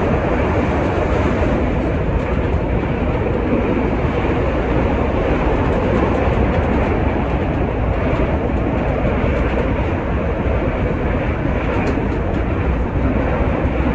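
CTA Pink Line 'L' train running at speed, heard from inside the passenger car: a steady rolling noise of wheels on rail.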